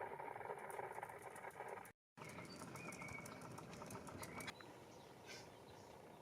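Faint background ambience with a few short, high bird-like chirps and scattered light ticks, broken by a moment of total silence about two seconds in, where the footage cuts.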